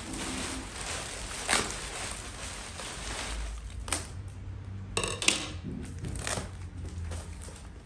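Packaging being handled during an unboxing: rustling and crinkling, broken by several sharp clicks and knocks.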